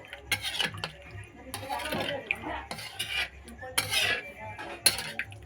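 Chicken being chopped into pieces with a knife on a cutting board: about four sharp chops with metallic clatter between them.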